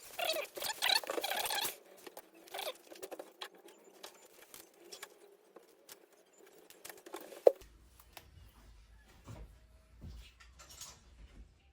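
Handling noise on a repair bench: a rustling scrape for the first two seconds, then scattered light taps and clicks, with one sharp click about seven and a half seconds in.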